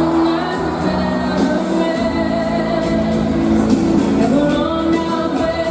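Music with a singing voice, held sung notes over a full backing.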